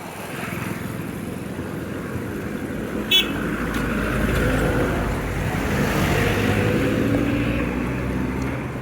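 Road traffic: engine noise building up as a vehicle passes close, loudest through the middle and then easing. A short, sharp high-pitched chirp cuts in about three seconds in.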